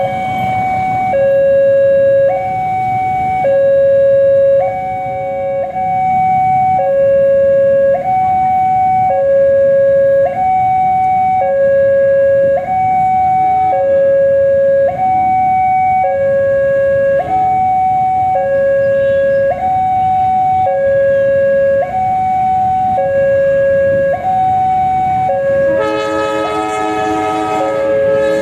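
Railway level-crossing warning alarm from the crossing post's loudspeaker: an electronic two-tone signal, a high tone and a low tone swapping about once a second, over and over. About two seconds before the end the approaching CC203 diesel locomotive's multi-tone horn comes in, together with the rumble of the train.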